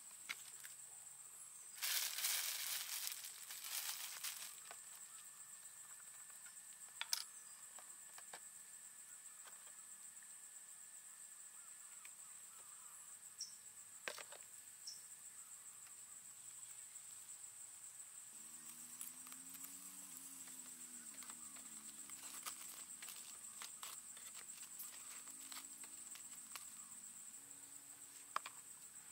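Steady, high-pitched insect chirring, with a rustle a few seconds in and a few sharp taps.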